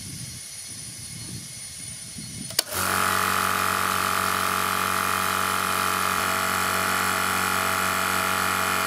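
Parkside PSKO 24 B2 oil-free 'silent' air compressor running while it inflates a car tyre. About two and a half seconds in, after a click, it gets much louder and settles into a steady hum.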